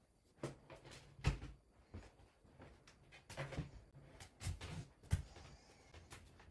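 A series of irregular light clicks and knocks, about seven or eight, from handling fabric pieces and tools at a sewing table.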